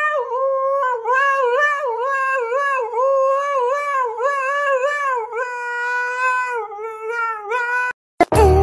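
Husky howling in a long run of wavering calls that rise and fall, one after another. It breaks off near the end, and music cuts in.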